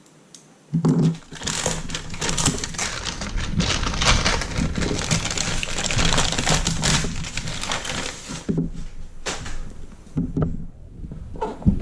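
Product packaging being opened and handled by hand: a dense stretch of crinkling and crackling, then a few separate knocks and taps near the end.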